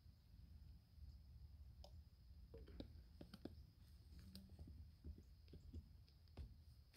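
Near silence, with faint scattered clicks and light taps of PVC pipe and fittings being handled and pushed together on a well head riser, starting about two seconds in and stopping shortly before the end.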